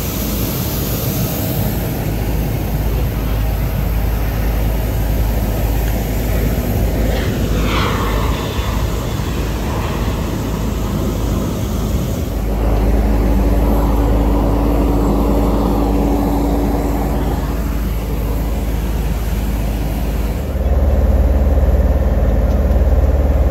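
Airliner cabin noise as an Airbus A330 taxis, with a brief falling whine partway through. After a cut comes outdoor apron noise with a steady hum, and near the end the louder low rumble of an apron bus driving.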